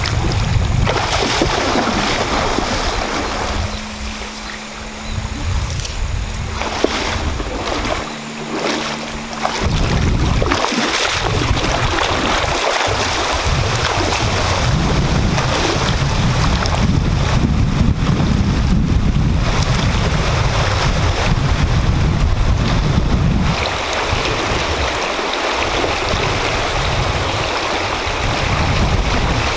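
Fast-flowing river water rushing, with legs wading through it and splashing, and wind buffeting the microphone in a low, uneven rumble.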